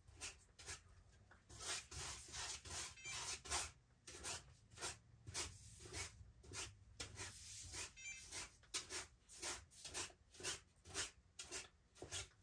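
Paintbrush swishing over a stretched canvas in quick repeated strokes, about two a second. The brush is spreading a wet coat that makes the canvas slippery, so the poured paint will flow out to the edges.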